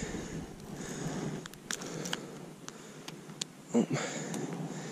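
Hands unhooking a largemouth bass and working a soft-plastic craw lure free: a few small sharp clicks and light rustling over a faint steady hiss, with a brief louder breathy noise just before four seconds in.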